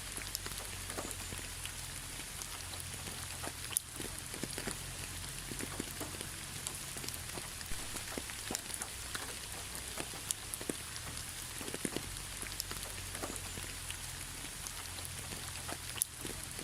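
Steady rain falling, with the sharp taps of individual drops scattered through the hiss.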